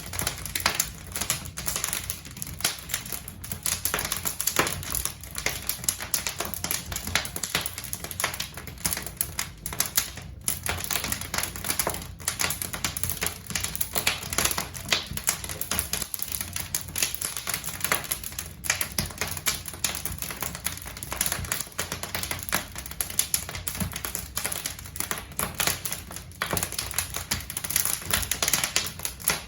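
Wood logs burning in a fireplace, crackling steadily with many sharp pops and snaps close together.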